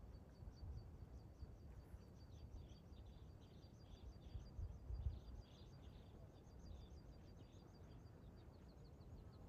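Faint outdoor quiet with a steady run of high, quick chirps, about five a second, from a small calling animal, over a low rumble.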